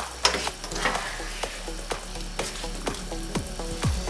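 Spatula stirring and scraping mushrooms and green peas through onion-masala in a nonstick pan over a low flame, the mix frying, with many short scraping strokes. Background music with falling bass notes comes in near the end.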